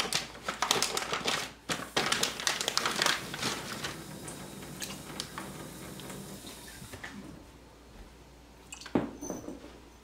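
Kitchen utensils and containers being handled: a quick run of irregular clicks and clinks for the first few seconds, then quieter, scattered taps, and a couple of sharper knocks near the end.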